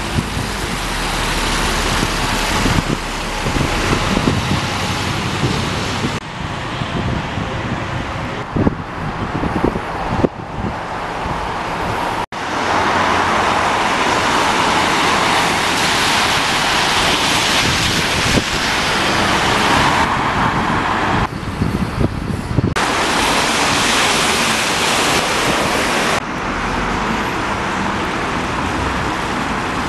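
Town-centre road traffic on wet roads: double-decker buses and cars driving past, with tyre hiss and engine rumble. The sound jumps abruptly several times where short clips are cut together.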